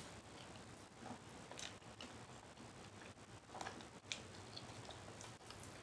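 Faint chewing of a mouthful of burger, with a few soft, scattered mouth clicks.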